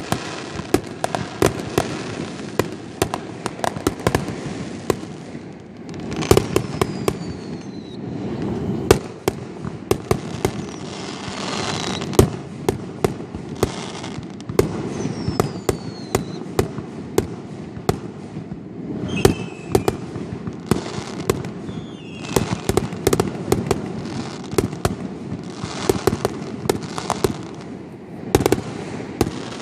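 A fireworks display: a steady run of sharp bangs and crackling from bursting shells, with several whistles that fall in pitch.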